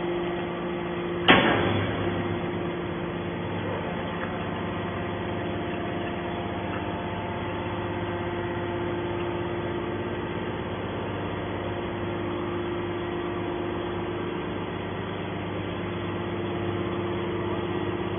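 Scrap metal baler running with a steady hum, with one sharp bang about a second in.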